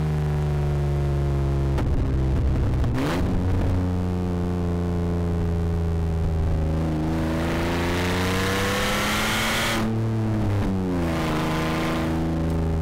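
Rally car engine at full throttle, one engine throughout. Its revs drop sharply at a gear change about three seconds in, climb steadily, then drop again at the next gear change around ten seconds.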